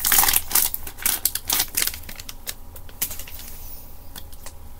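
Foil Pokémon booster pack wrapper crinkling and being torn open by hand: a rapid run of crackles in the first two seconds, thinning to scattered clicks.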